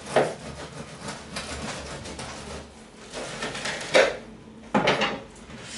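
Bread knife sawing through the crisp, crusty shell of a baked sourdough loaf: a run of scratchy crackling strokes, then two louder cracks of crust about four seconds in and just before five.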